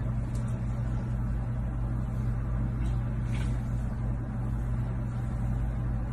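A steady low hum, with a couple of faint light ticks near the middle.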